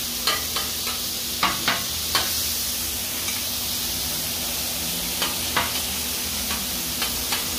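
Chopped bacon and ground beef sizzling on a hot Blackstone flat-top griddle, with metal spatulas scraping and clacking on the steel cooktop as the bacon is stirred. The sharp scrapes come several times in the first couple of seconds and a few more times later over the steady sizzle.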